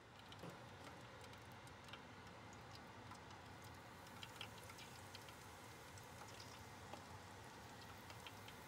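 Breaded shrimp frying in the hot oil of an electric deep fryer: a faint, steady sizzle with scattered small crackles and pops.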